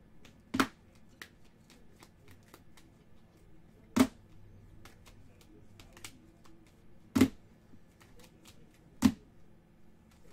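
Rigid clear plastic trading-card holders being shuffled and handled: four sharp plastic clacks a few seconds apart, with light ticking and rustling of the cases between them.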